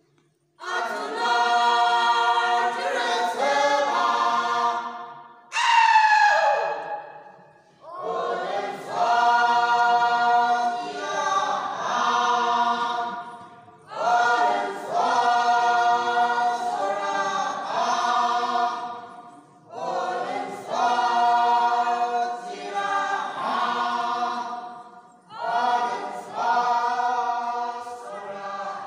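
Mixed group of male and female voices singing a folk song unaccompanied, in phrases of a few seconds with short breaks between them. About five and a half seconds in, a single high voice glides steeply downward between phrases.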